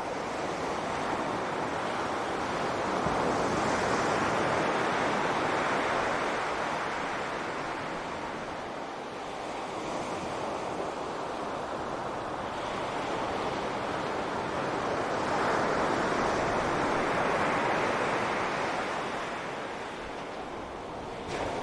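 Ocean surf washing onto a beach: a steady rush of waves that swells twice as waves break, about twelve seconds apart.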